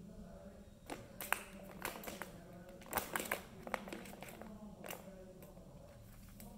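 Kittens batting the plastic balls around the tiers of a Tower of Tracks cat toy: irregular light clicks and knocks of ball and paw on the plastic track, busiest from about one to three and a half seconds in.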